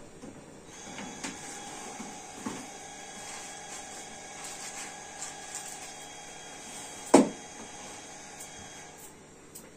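Metal baking tray sliding into a countertop electric oven with light scraping clicks, then the oven's hinged glass door knocking shut about seven seconds in. A steady hum runs underneath.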